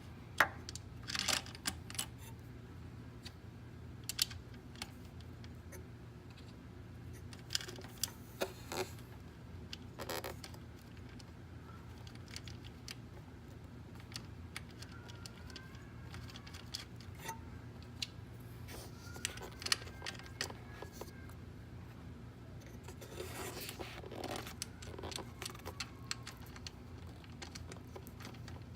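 Scattered metal clicks, taps and short scrapes of hand work: the new EVAP purge valve being fitted onto its intake-manifold studs and its 10mm nuts and washers put on and tightened. A steady low hum runs underneath.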